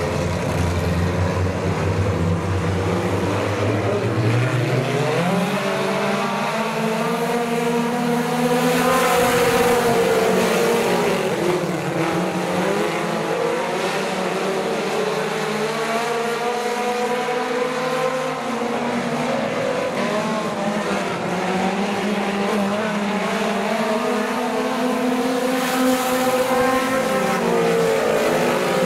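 A pack of four-cylinder mini-stock race cars racing, their engines revving up and backing off in long rising and falling sweeps as they go around the oval.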